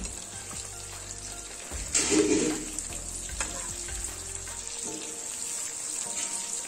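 Hilsa fish steaks sizzling as they shallow-fry in hot oil, with a spatula scraping and turning the pieces in the pan. A louder burst of sizzle and scraping comes about two seconds in, as a piece is flipped.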